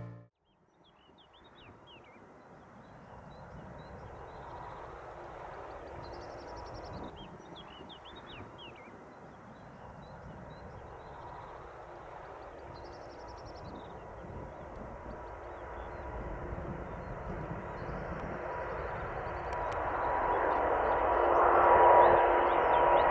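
Airbus A350's Rolls-Royce Trent XWB turbofans at takeoff power, a jet rush that grows steadily louder and peaks near the end with a steady whine over it as the airliner lifts off. Small birds chirp now and then above it.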